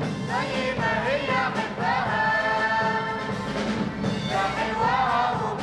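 Choir of women and men singing an Arabic song over instrumental backing.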